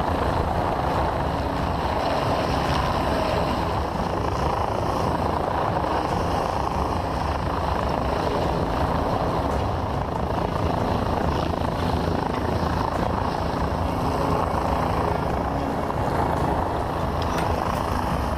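Helicopter running steadily overhead, its rotor chop and engine noise continuous.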